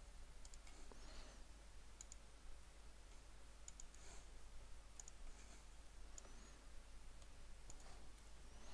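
Near silence: faint room hiss with a few scattered, faint computer mouse clicks.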